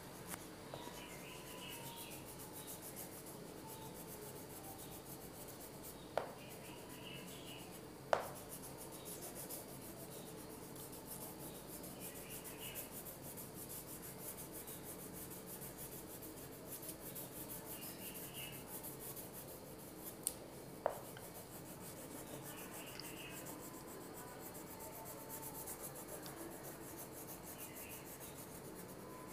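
Green crayon rubbing back and forth on paper, a faint steady scratchy shading sound, with a few sharp little clicks along the way.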